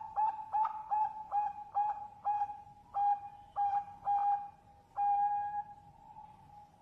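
Zebra dove (perkutut bangkok) cooing: a series of short, clipped coo notes on one pitch that space out as the phrase goes on, ending in one long drawn-out note about five seconds in that slowly fades.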